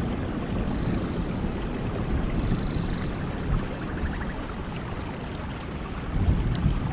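Steady rain falling, an even hiss of drops over a low, uneven rumble, with a few faint high chirps.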